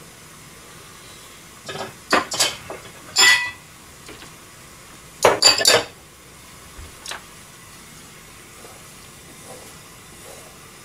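Metal kitchen utensils clinking against pans and dishes in a few short bursts, the loudest a quick cluster of clinks about five seconds in. Underneath is the steady faint hiss of noodles boiling in a pan.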